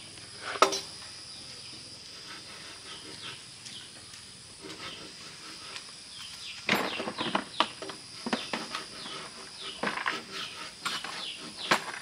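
Many short, quick chirping animal calls, sparse at first and crowding in from about seven seconds on, over a steady high-pitched insect drone. A sharp click comes just after the start.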